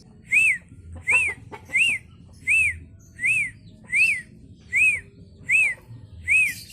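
A bird calling one short whistled note over and over, each note rising then falling in pitch, evenly about every three-quarters of a second, nine times.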